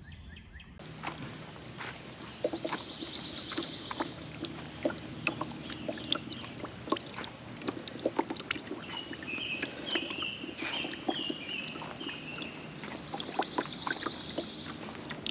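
Garden pond fountain trickling: water running and dripping into the pond in many small, irregular splashes.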